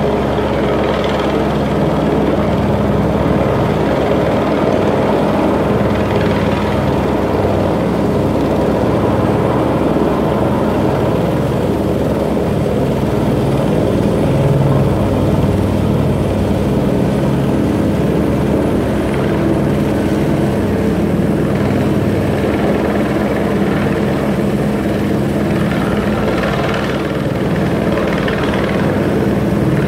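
Helicopter hovering overhead, its rotor beating steadily.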